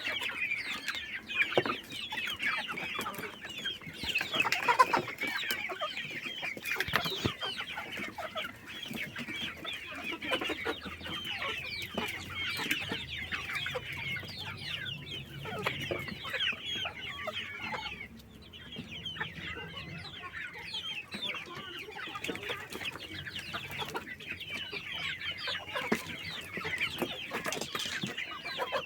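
A flock of Kadaknath chickens clucking and chirping, many birds calling over one another with a continuous chatter of short high calls, easing briefly about two-thirds of the way through.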